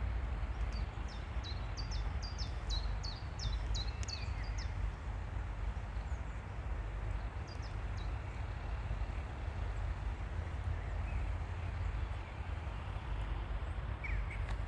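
A small bird calling a quick run of short, high, falling chirps, two or three a second, for the first few seconds, then a few scattered chirps later. Under it runs a steady low outdoor rumble.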